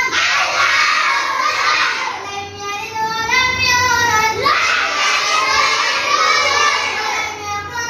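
Quran recitation by children: a child's voice chanting in long, drawn-out melodic lines, with other children's voices in the room.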